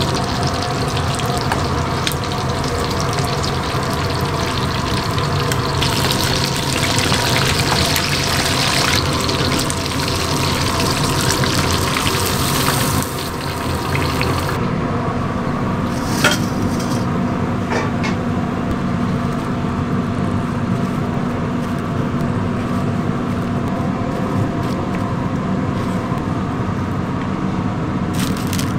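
Menbosha (shrimp toast) deep-frying in a wok of hot oil, a dense steady sizzle. About halfway through, the sizzle drops away as the pieces come out of the oil, leaving a lower steady kitchen hum with a few short clicks.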